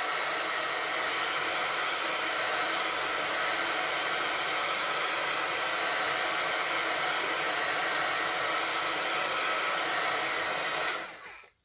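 Handheld embossing heat gun blowing steadily, drying freshly spritzed ink colours on a small metal piece. It is switched off near the end, and the airflow dies away.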